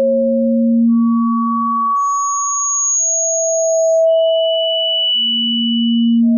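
Tinnitus-relief tone sequence: steady pure sine tones, two sounding at once, each held for a second or two before giving way to a new pitch. They jump between a low hum and a very high whistle.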